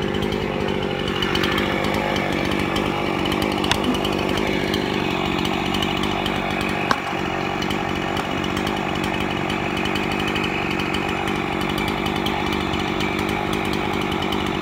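Two-stroke chainsaw engine running steadily at an even speed, without revving. A single sharp click about seven seconds in.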